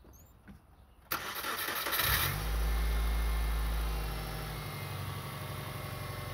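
Subaru Forester's flat-four boxer engine cranked by the starter for about a second, catching and running at a fast idle, then settling to a steady idle near the end. It is the first start after the intake manifold assembly was replaced, and the engine starts and runs.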